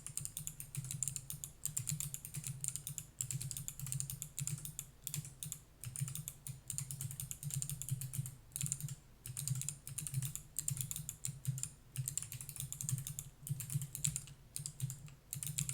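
Steady fast typing on a handbuilt Skeletyl split mechanical keyboard with NovelKeys x Kailh BOX Jade clicky switches: a dense stream of sharp, crisp key clicks with a few brief pauses.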